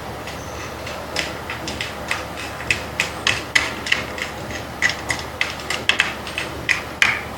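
A string of sharp, light taps and clicks, roughly two or three a second and unevenly spaced, from hand work with tools on a small part.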